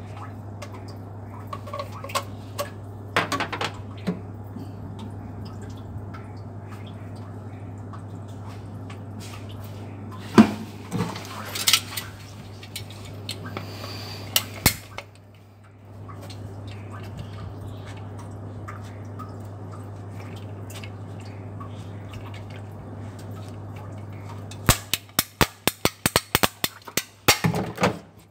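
Scattered sharp clicks and clinks of small hard parts being handled, over a steady low hum. Near the end comes a quick run of about a dozen clicks.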